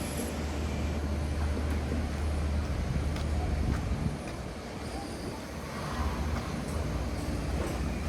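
Low, steady rumble of vehicle noise that eases off about halfway through and builds again near the end.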